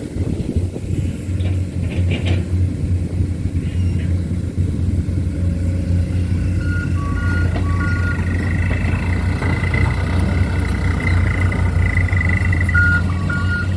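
Heavy diesel engine running steadily under load. From about halfway through, a short two-pitch electronic beeping repeats over it.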